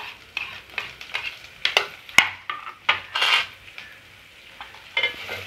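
Ginger, garlic, dried red chillies and whole spices frying gently in a little oil in an aluminium pot, with grated coconut being pushed in off a banana leaf: a faint sizzle with scattered sharp clicks and scrapes, mostly in the first three seconds.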